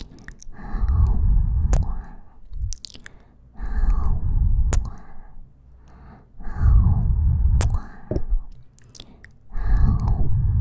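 Close-mic ASMR mouth sounds right at the ear: kisses and sucking lip smacks with warm breaths blowing on the microphone, in four rounds about every three seconds.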